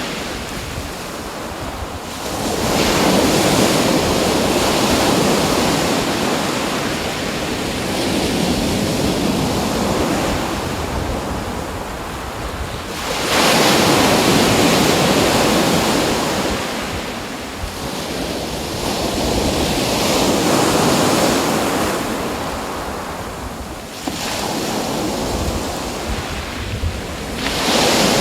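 Ocean waves breaking and washing in, a steady rushing that swells three times, roughly every eleven to fourteen seconds, and ebbs in between.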